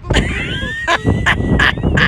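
A person imitating a chicken: a sudden burst of high, sliding squawks, then short repeated 'bawk' calls about three a second.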